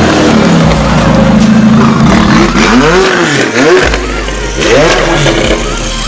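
McLaren 570S twin-turbo V8 with catalyst replacement pipes (decat exhaust), revved in several quick blips, its pitch climbing and falling about halfway through.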